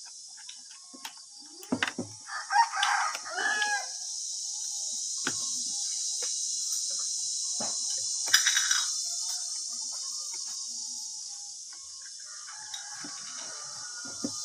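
Short metal clicks and taps of a screwdriver working at the gear housing of a Makita 9527NB angle grinder, under a steady high-pitched hiss. A bird calls loudly for about two seconds, starting about two seconds in.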